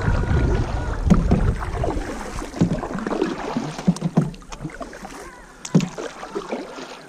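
Canoe being paddled: paddle strokes splashing in the water, with scattered knocks against the hull. Wind rumbles on the microphone for the first two seconds or so, and the sound fades toward the end.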